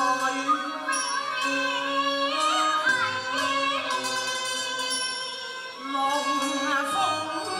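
Cantonese opera (yueh kuk) duet sung by women's voices in a gliding, ornamented line over a live instrumental ensemble. The music dips briefly about six seconds in, then carries on.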